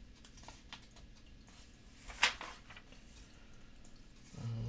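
A page of a thin glossy paper catalog being turned by hand: light paper rustles and ticks, with one sharp paper flap about two seconds in.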